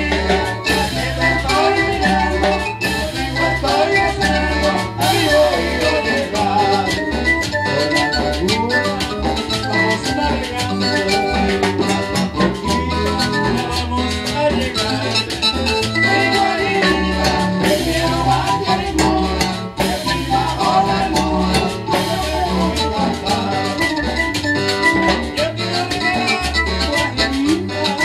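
A live Latin dance band plays raspacanilla on timbales with a cymbal, congas and an electronic keyboard, over a steady, driving beat.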